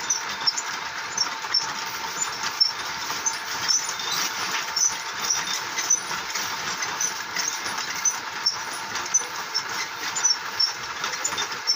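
Puffed-rice (muri) roasting machine running: a steady rattling hiss as the rice is roasted, with many small crackles throughout.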